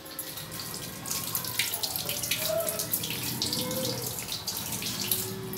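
Urad dal vadas deep-frying in hot oil in a kadai: a steady sizzle with crackles and spits throughout.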